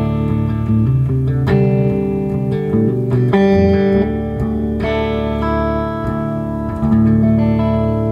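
Gretsch White Falcon G6136T hollow-body electric guitar with Filtertron pickups, played through a Laney amp: a slow run of chords, each struck and left to ring.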